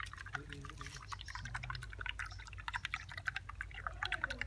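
A thin stick stirring wasabi paste into a plastic cup of green tea: rapid, irregular light clicks of the stick against the cup, with liquid swishing.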